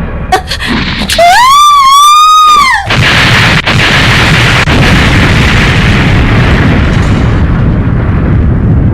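Cartoon sound effects: a high, wavering pitched cry for about a second and a half, then a loud explosion rumbling on steadily for the rest of the time.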